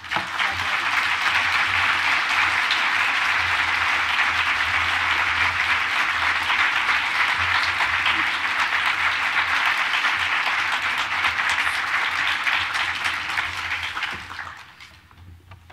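Audience applauding, starting at once and fading away over the last second or two.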